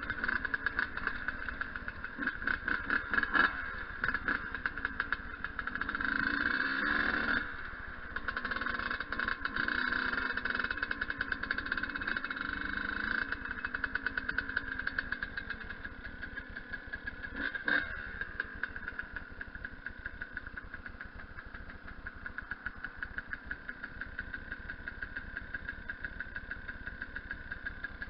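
Yamaha YZ125's single-cylinder two-stroke engine running, its revs rising and falling several times.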